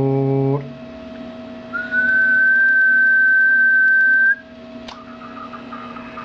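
A person whistling one steady held note into the microphone of a Kenwood TS-430S HF transceiver, the usual way to drive SSB output for a power check. A short low buzzing tone comes first, and the whistle lasts about two and a half seconds. A faint steady tone runs underneath.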